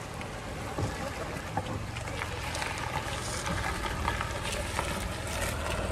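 Ford EcoSport driving off-road over a rough, unpaved track: a steady engine rumble with scattered knocks and rattles from the wheels on the rough ground.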